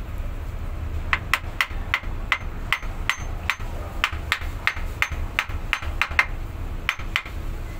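A hammer tapping repeatedly on the output flange of a ZF truck transmission, seating it back on the output shaft over a new oil seal. About twenty sharp metallic strikes, roughly three a second, start about a second in; each has a short ring.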